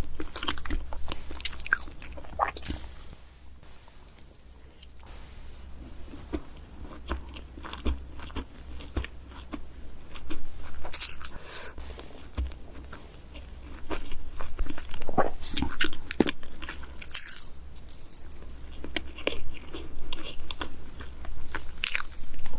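Close-miked mukbang eating of chocolate cake: repeated bites and chewing with crunchy, crackling mouth sounds. It eases off for a few seconds about three seconds in, then picks up again.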